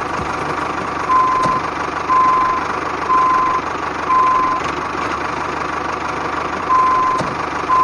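Reversing-alarm beeping, one steady tone about once a second, over a steady engine running sound. The beeps pause for about two seconds past the middle, then come twice more near the end.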